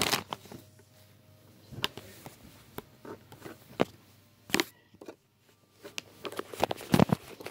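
Irregular clicks, taps and knocks of a thin tin crayon box being handled and pried at, with a few louder knocks, the loudest near the end.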